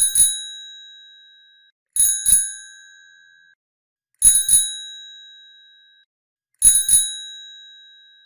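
Bicycle bell rung four times, about every two seconds, each time a quick double ring whose clear tones fade out over about a second and a half.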